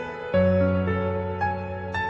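Slow, gentle background music, piano-like, with sustained notes and a new low chord struck about a third of a second in.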